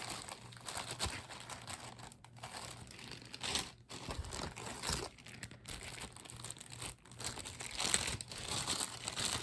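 Plastic bags crinkling and rustling as jewelry pieces are handled and unbagged, in irregular bursts with short pauses.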